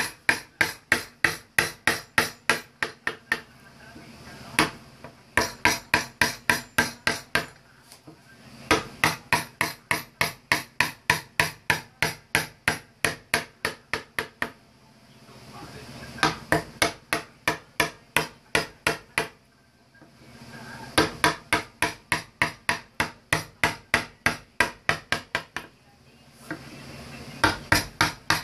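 A wooden mallet tapping a woodcarving gouge into a carved wooden panel. The taps are rapid and light, about four a second, in runs of several seconds with short pauses between.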